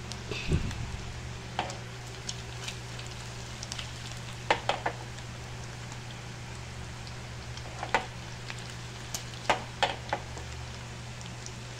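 Sausages frying in hot oil in a pan: a steady sizzle broken by scattered sharp pops and crackles of spitting fat, with a cluster of louder pops about halfway through and again near the end.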